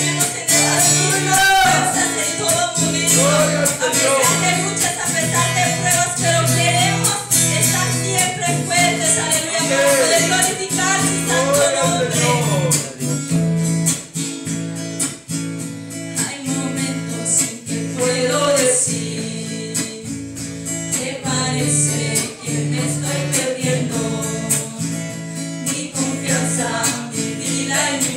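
Two singers, a man and a woman, singing a worship song through microphones over a strummed guitar accompaniment. About halfway through the voices drop out, leaving the guitar backing, with short sung phrases coming back near the end.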